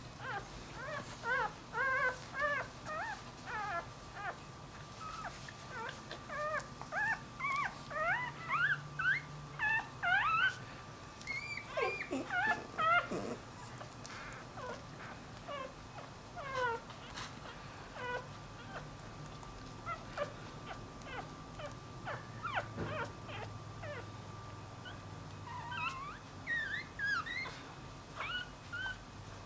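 Newborn puppy squeaking and whimpering in short, high-pitched cries, many in quick succession through the first half, sparser after, then a fresh flurry near the end.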